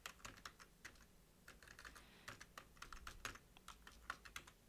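Computer keyboard being typed on: faint, irregular runs of key clicks.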